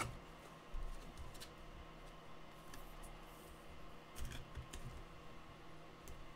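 Faint, scattered clicks and rustles of trading cards and clear plastic card holders being handled.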